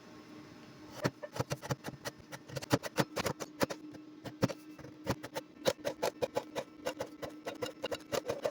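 Scissors cutting paper: quick, irregular snips, several a second, starting about a second in.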